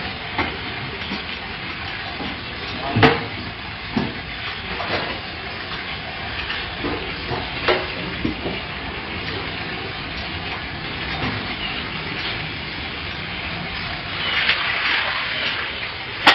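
A dense mass of young freshwater eels writhing and slithering over one another in shallow water, giving a steady wet crackling hiss like frying. A few sharp knocks stand out, the strongest about three seconds in, and the hiss swells briefly about fourteen seconds in.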